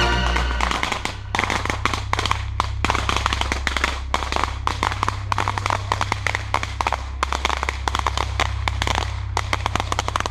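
1.4G consumer fireworks crackling: a dense run of rapid, sharp pops, many a second, as a column of sparks goes up.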